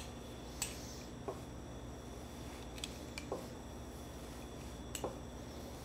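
Rolling pastry cutter working through a sheet of Danish dough on a wooden bench: a few faint clicks and taps, a second or two apart, over a steady low hum.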